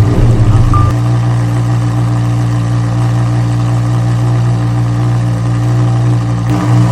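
Lamborghini engine sound effect: the engine settles from uneven running in the first second into a steady idle, with a small swell near the end.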